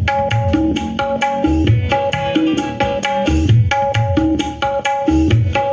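Dangdut music playing loudly through a sound-system speaker cabinet: regular low drum beats about twice a second from kendang-style hand drums, under a repeating melodic line.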